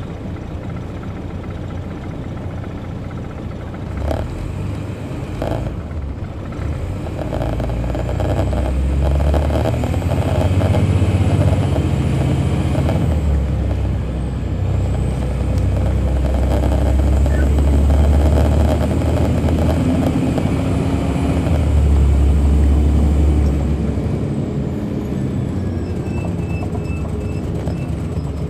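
Detroit Diesel Series 60 diesel engine of a 2002 MCI D4000 coach heard from the rear seats, working hard under acceleration. The low engine note builds about eight seconds in, eases for a moment, and builds again twice before dropping back near the end. A thin high whine rises and falls with it.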